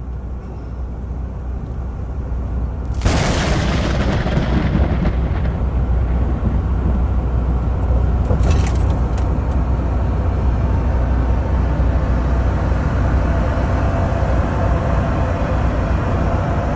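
Truck on the move: a steady low rumble of engine and road noise, with a sudden loud rush of noise about three seconds in, after which it stays louder, and a short hiss a few seconds later.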